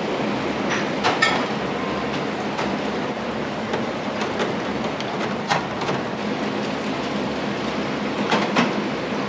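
Busy restaurant kitchen at work: a steady rushing background noise with several sharp clinks of crockery and utensils, the loudest about a second in and a pair near the end.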